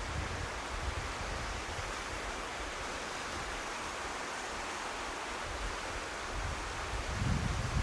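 Sea surf washing on the shore as a steady hiss, with wind buffeting the microphone, most strongly near the end.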